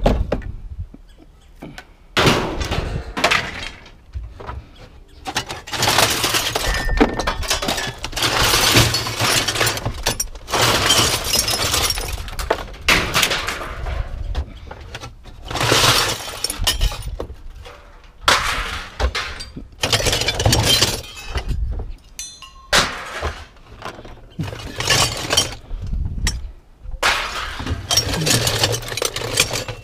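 Scrap metal being thrown off a truck bed onto a pile, a long run of loud clattering crashes one every second or two.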